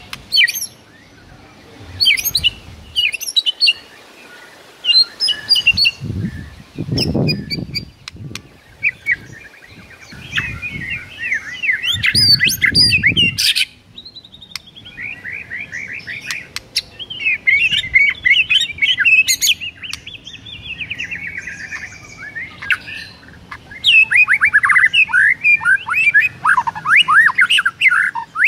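White-rumped shama singing a long run of rapid, varied whistles and chatters, its fighting song in answer to a played master recording. There are a few low thuds about a quarter of the way in and again near the middle.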